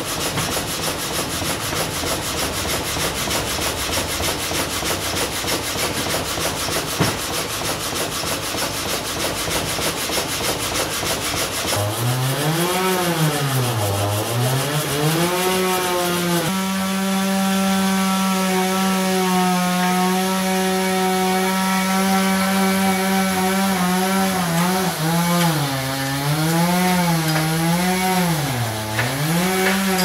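Sawmill log saw cutting through timber, a dense rapid rasping. About twelve seconds in it gives way to a loud pitched hum that swoops down and up in pitch, holds steady for several seconds, then wavers up and down again.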